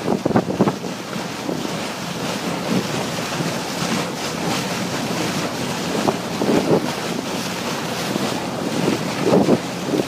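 Wind buffeting the microphone over the steady rush of water along a moving boat's hull, with a few louder gusts about half a second, six and a half and nine and a half seconds in.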